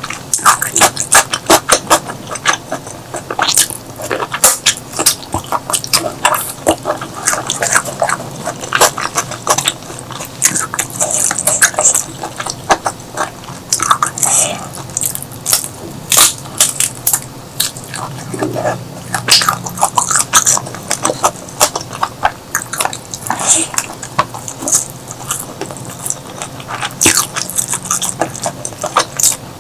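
Close-miked chewing and biting of food, with many sharp, crunchy and wet mouth clicks coming at an irregular pace.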